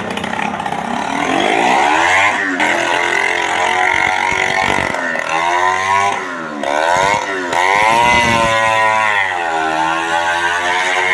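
Several motorcycle engines running and being revved, their pitch rising and falling again and again, inside the wooden drum of a well-of-death stunt arena.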